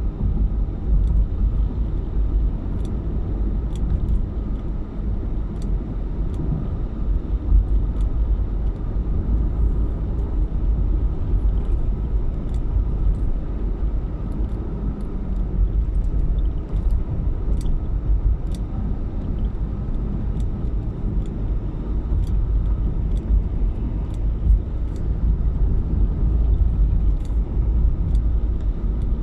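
Car driving on the road: a steady low rumble of engine and tyre noise, with faint scattered clicks.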